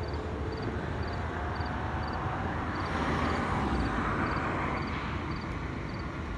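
Train rumbling steadily on the curve, a deep low drone under a rushing noise that swells for a second or so about three seconds in.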